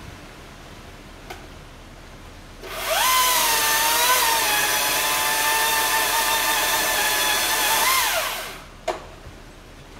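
Chainsaw run up to full speed about a quarter of the way in, held there for about five seconds while cutting a limb of a maple tree, then let off so its pitch drops and it stops.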